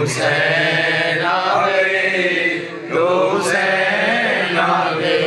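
A man chanting devotional Urdu verse in praise of Husain into a microphone, with long drawn-out notes and a brief breath about halfway through.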